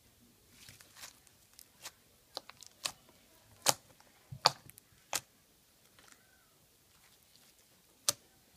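Slime being squeezed and kneaded by hand, giving irregular wet pops and clicks. The loudest pops come in the middle, then a quiet stretch and a single pop near the end.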